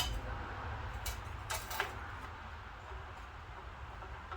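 A few sharp metallic clanks, four in the first two seconds, over a steady low hum: sheet metal being worked on a hand sheet-metal brake.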